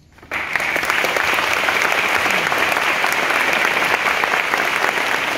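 Audience applause breaks out suddenly about a third of a second in, after near silence, and carries on steadily as the brass band's piece ends.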